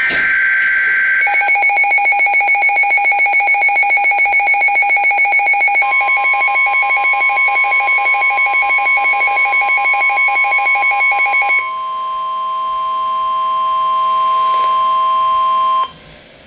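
Weather-radio emergency alert tones: a brief burst of two-tone digital header data, then an electronic alarm beeping in fast pulses for about ten seconds. About six seconds in, the steady 1050 Hz NOAA Weather Radio warning alarm tone joins it and holds alone until it cuts off shortly before the end, signalling an incoming warning.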